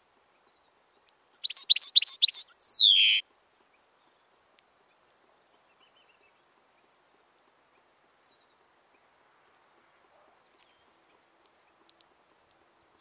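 European goldfinch singing one short phrase: five quick repeated high notes followed by a note that slides downward. A few faint short notes follow later.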